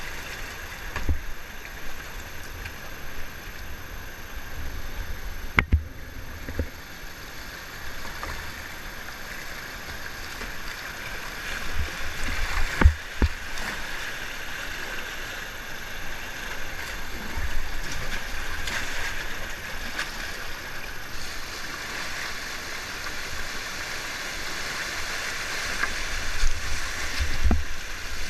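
Fast river current rushing and splashing around a whitewater kayak as it is paddled downstream, with paddle blades dipping into the water. A few sharp knocks stand out, the loudest a little under halfway through.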